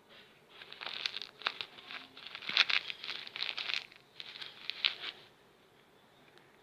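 A fidget toy being handled, giving a dense run of crinkling and clicking that starts about half a second in and stops about five seconds in.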